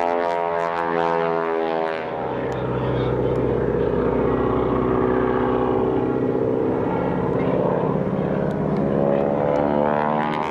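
Propeller airplane engine droning overhead. Its pitch slides down over the first couple of seconds as it passes, settles into a lower, fuller drone, then climbs again near the end.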